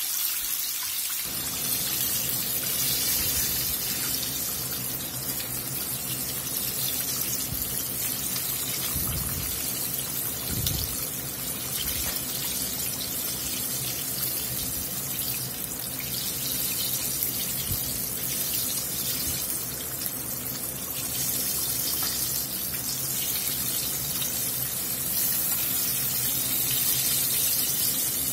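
Batter-coated chicken tenders deep-frying in peanut oil in a cast iron pot: a steady bubbling sizzle.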